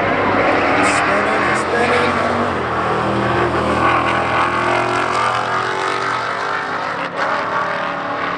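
Two drag cars, a late-model Ford Mustang and a 1960s sedan, launching and accelerating hard down the strip, engines revving up in pitch through the run.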